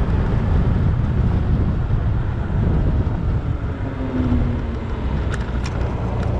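Wind and road noise on a moving Yamaha Zuma 125 scooter: a steady, heavy low rumble at riding speed, with a couple of short ticks near the end.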